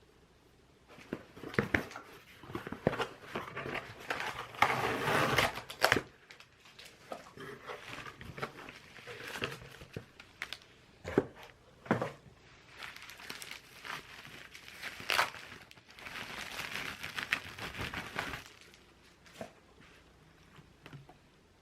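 Packaging being crinkled and rustled by hand in uneven bursts, with a few sharp clicks and taps.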